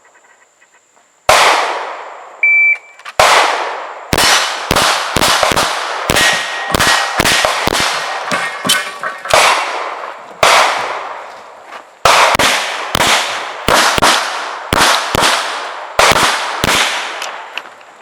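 A centerfire pistol firing a long rapid string of about thirty sharp shots, in quick runs with short pauses, starting about a second in.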